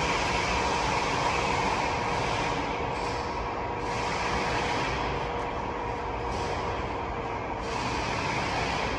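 Steady mechanical noise of a maintenance shop, with a faint constant hum running through it.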